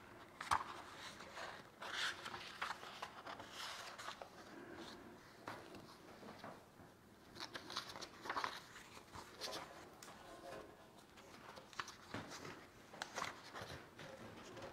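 Paper pages of a ring binder rustling and flapping as they are turned one after another by hand, in faint irregular bursts with a few louder flaps scattered through.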